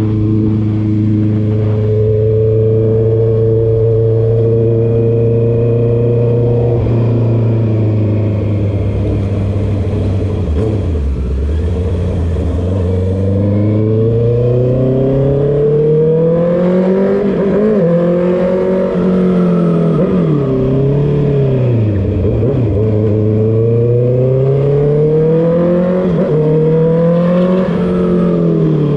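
Honda CB650R inline-four engine run through a full exhaust with the DB killer removed, heard while riding. It holds steady revs for the first several seconds and slows around ten seconds in. It then climbs in revs again and again, with sharp drops between the climbs.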